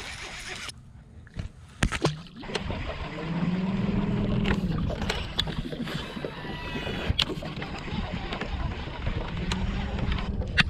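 Bow-mounted electric trolling motor on a bass boat running, its low hum slowly rising and falling in pitch, with water and wind noise; a couple of sharp clicks about two seconds in.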